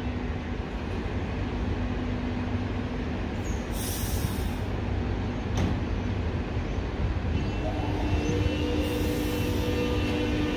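Electric suburban trains standing at a platform with a steady low hum and two short bursts of high hiss; about seven seconds in, steady whining motor tones start up as the near Siemens train begins to pull away.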